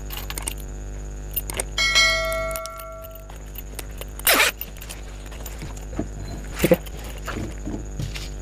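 Clicks and knocks of a zipper and fabric being handled and set under the presser foot of an industrial sewing machine, over the steady hum of the machine's motor. About two seconds in, a ringing tone sounds for over a second.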